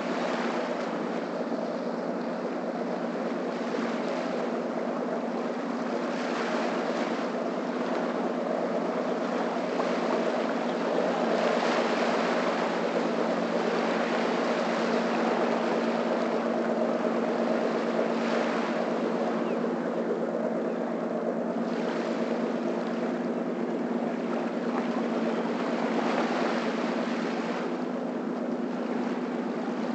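A motorboat's engine running with a steady hum as the boat passes offshore, loudest about midway. Small waves wash up on the sand at intervals of a few seconds.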